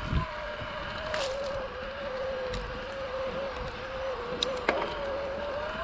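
Electric mountain bike's Shimano Steps mid-drive motor whining steadily, its pitch wavering slightly, over the rush of tyres on a sandy dirt track. A few knocks and sharp clicks from the bike, one right at the start, one about a second in and two close together near the end.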